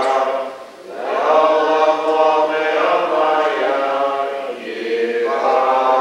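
Voices singing a Hebrew prayer together in slow, long-held notes, with a short break about a second in.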